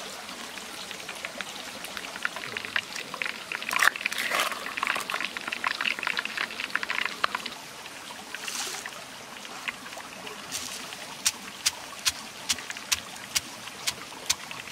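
Wet squelching and scraping as chili paste is stirred and scooped around a stone mortar. In the last few seconds this gives way to an even run of sharp knocks, about two or three a second, as a stone pestle pounds peanuts in the mortar.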